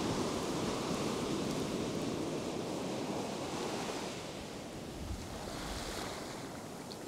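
Ocean surf breaking and washing up a sandy beach in a steady rush.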